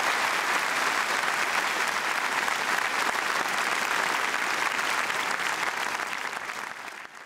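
Large audience applauding steadily, the clapping fading away near the end.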